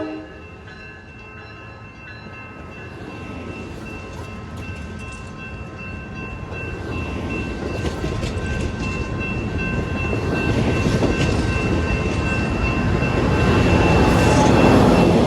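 A train horn cuts off just at the start, then a train approaches: its rumble and wheel noise build steadily and are loudest near the end as it draws close.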